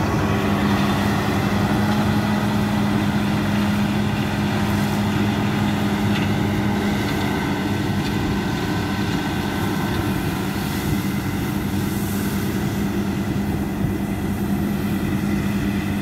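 Claas Lexion 760TT combine harvester running steadily while harvesting wheat: a constant engine drone with a strong steady hum and the whir of its threshing machinery, unchanging throughout.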